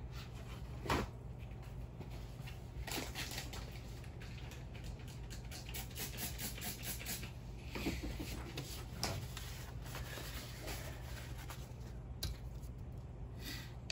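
Faint, scattered clicks and light scratching of small RC helicopter tail parts being handled and fitted by hand, over a steady low hum.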